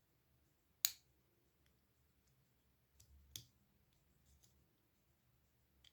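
A few sharp clicks and faint ticks of small metal and plastic switch parts being handled and fitted together: one loud click about a second in, two more about three seconds in. The parts are the cover and slider parts of a slide switch from a Pioneer SA-9800 amplifier being reassembled.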